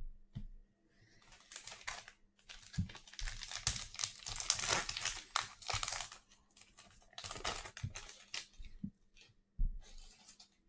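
A foil trading-card pack wrapper being torn open and crumpled by hand, crinkling in several bursts, with a few light knocks of handling between them.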